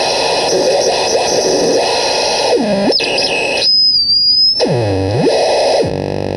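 Crystal radio noise synth putting out harsh, buzzy noise as its knobs are turned. Twice its pitch dips down and swoops back up, with a thin high whistle in between. Near the end it drops to a quieter low drone.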